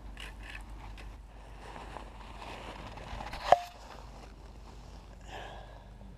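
Rustling and scuffing of someone moving about, with one sharp knock about halfway through that rings briefly.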